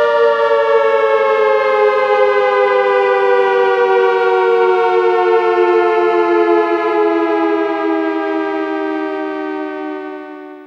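Synthesized ACA Hurricane 130 dual-tone siren (8/10 port) sounding the Pulse Attack signal. A two-note chord falls slowly and steadily in pitch and fades out near the end.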